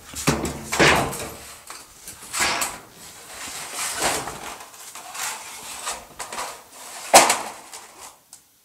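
A corrugated metal roofing sheet sliding up over wooden rafters and against the sheet beside it, scraping and rattling in about four bursts, the loudest near the end.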